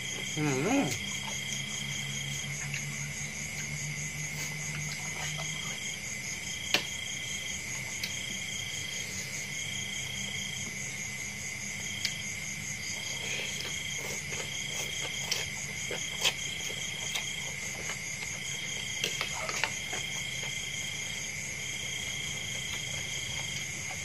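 Insects trilling steadily in the background, with one chirping call that repeats about once a second. Over it come a few sharp clicks of a fork and spoon against a ceramic bowl, and faint chewing.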